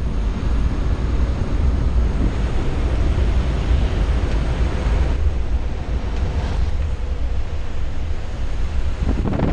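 Loud, steady rush of wind and propeller-aircraft engine noise inside a skydiving jump plane's cabin with the jump door open, a deep rumble under a broad whoosh.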